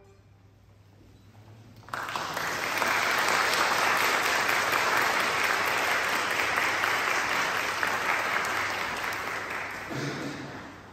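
Audience applause that starts suddenly about two seconds in after a brief hush, holds steady, and tapers off near the end.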